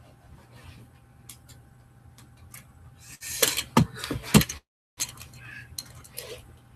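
Knocks, thumps and rustling from someone moving about on a carpeted floor right beside the microphone, loudest in a cluster of sharp knocks about three to four and a half seconds in. The sound cuts out completely for about half a second just after.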